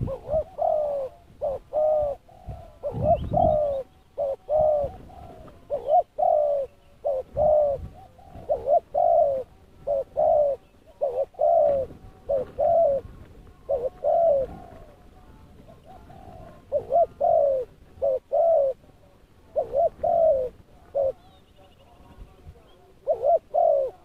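Spotted dove cooing over and over, in runs of short coo notes with a few short pauses. There is a brief low rumble about three seconds in.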